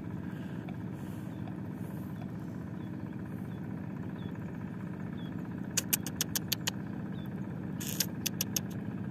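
A steady low engine drone, like a motor idling, with two quick runs of sharp clicks about six and eight seconds in.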